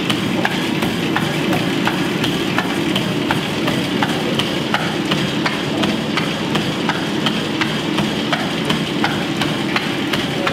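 Treadmill running under a jogger: the belt and motor hum steadily while footfalls strike the deck at an even pace of about three a second.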